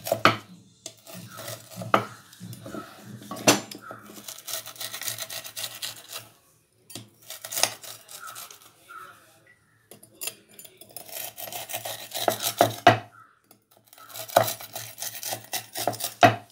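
A plastic scraper's edge pressed and dragged through a thin sheet of sesame-and-sugar brittle on a wooden rolling board, scoring it into pieces while it is still warm. Bouts of scraping and rasping are broken by sharp knocks of the scraper on the board every few seconds.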